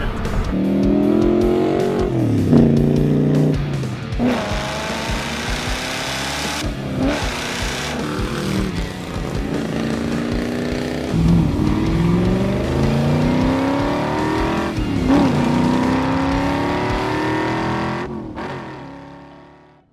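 A car engine accelerating hard through the gears: its pitch climbs, drops at each upshift and climbs again, several times over. The sound fades out near the end.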